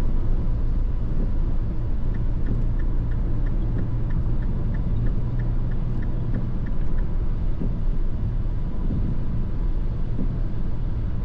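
Steady low engine and road rumble heard inside the cabin of a MINI R55 Clubman on the move. A light ticking of about three a second starts about two seconds in and stops after about five seconds.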